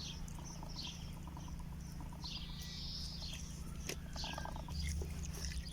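Small birds chirping: short, scattered high chirps and one longer warbling call about two seconds in, faint over a low steady rumble.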